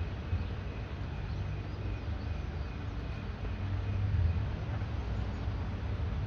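Steady hiss of light rain over a low rumble that swells slightly about four seconds in.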